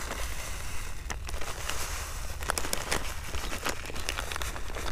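A groundbait packet crinkling and rustling as dry groundbait is poured out of it, with many scattered sharp crackles.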